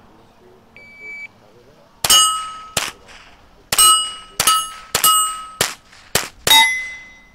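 Electronic shot timer's start beep, then a fast string of about eight rifle shots over some four seconds. Steel plate targets ring after several of them, the last ring lasting longest.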